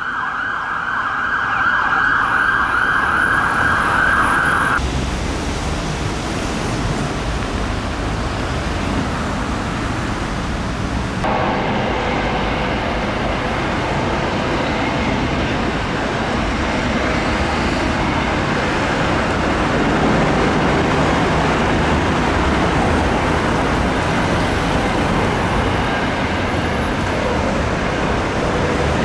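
An ambulance siren wails for the first five seconds and cuts off suddenly. A stretch of low rumbling noise follows. From about eleven seconds in, an air ambulance helicopter flies past with a steady rotor and turbine roar.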